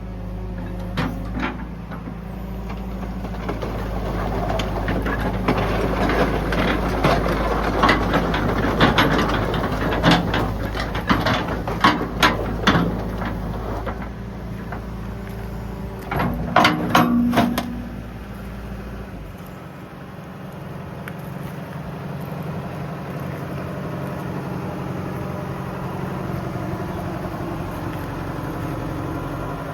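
Hitachi EX120-5 excavator's diesel engine running steadily, with a series of sharp knocks and clanks through the first half and another cluster a little past the middle. The deepest part of the engine rumble drops away about two-thirds of the way through.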